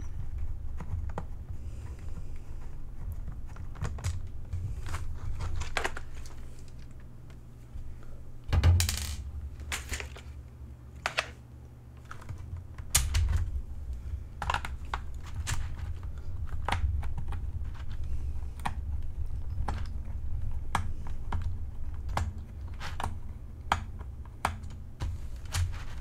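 Irregular small plastic clicks and taps from handling a membrane keyboard's plastic case, parts and screws during disassembly, with one louder clatter about nine seconds in. A steady low hum runs underneath.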